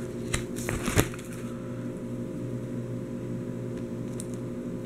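Plastic sleeve page of a trading-card binder being turned: a few sharp crinkly clicks in the first second, the loudest about a second in, then a faint tap near the end. A steady low electrical hum runs underneath.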